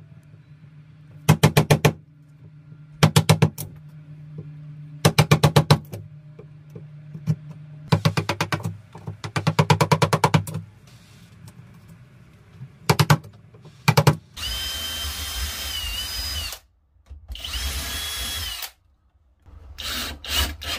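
Wooden mallet tapping a wood chisel in short bursts of quick light strikes, cutting a hinge recess into a wooden door frame. Past the middle, a cordless drill runs twice for about two seconds each with a steady whine, driving the hinge screws.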